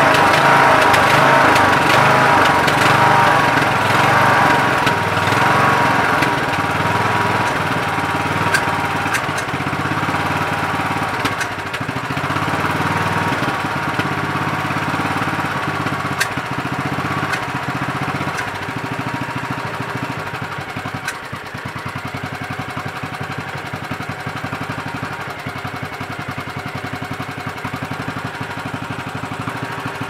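Briggs & Stratton Intek 20 hp lawn tractor engine running, its loudness easing down over the first twenty seconds or so and then holding at idle. The owner judges it to be running lean, with too much air and not enough fuel through its replacement carburetor.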